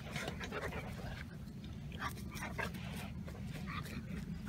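Alaskan malamute and German shepherd puppy play-wrestling, with short scattered dog noises near the start, about two seconds in and near the end, over a steady low rumble.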